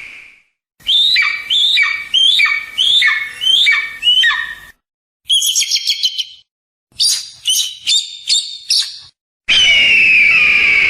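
Kite calls played as separate clips with silent gaps: a run of about six falling whistled notes, then a short chattering burst, a few clipped notes, and a long call starting near the end.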